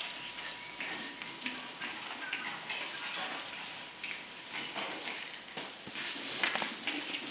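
A puppy playing with plush toys on a tiled floor: irregular scuffling, claw taps and rustling.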